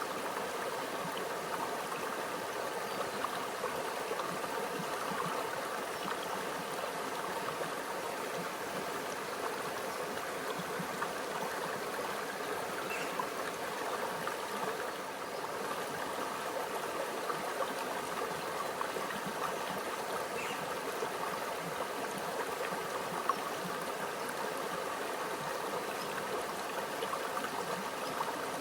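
Small stream flowing steadily over rocks, a continuous babble and trickle of water with a few small splashes and ticks in it.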